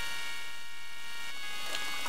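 Synthesized film score: a buzzy chord of high, steady tones held and then shifting to a new chord a little over halfway through. A rushing noise comes in near the end.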